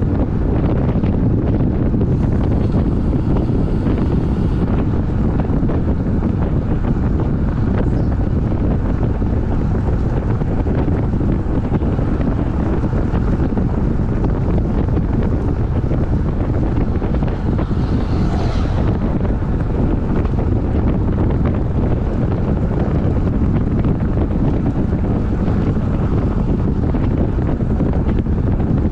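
Wind buffeting the microphone of a road bike riding at about 40 km/h: a steady, loud low rush of wind noise.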